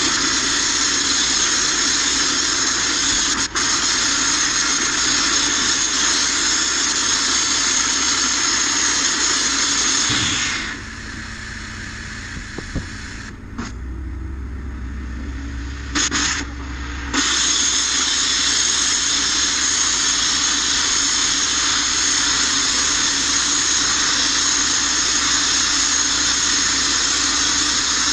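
Abrasive media-blasting nozzle hissing steadily as it blasts the rusty steel floor of a van. The blast cuts off about ten seconds in, with two short blips and a low hum in the gap, and comes back on about seven seconds later.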